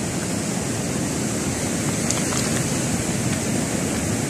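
Rough sea surf breaking and washing onto a pebble beach: a steady rushing noise.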